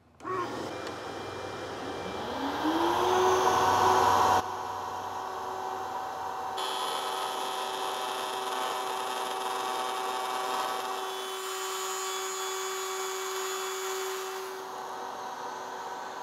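Table-mounted wood router with a half-inch bit spinning up with a rising whine, then running at a steady high whine while hard maple blanks are fed past the fence to trim a straight inside cut.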